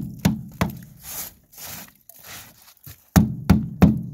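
Ice being chipped off an aluminum boat's gunwale with a hand tool: sharp strikes about three a second at the start, a few softer rasping sounds in the middle, then three more strikes near the end, each leaving a short low ring.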